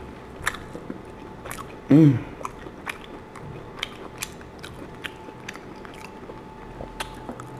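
Close-miked chewing and biting of crusty baked pizza-dough bread: irregular small crunches and mouth clicks, with a brief voiced hum about two seconds in.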